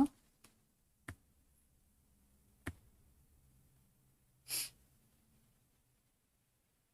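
Two faint sharp clicks, typical of a computer mouse, then a short breath into the microphone about four and a half seconds in.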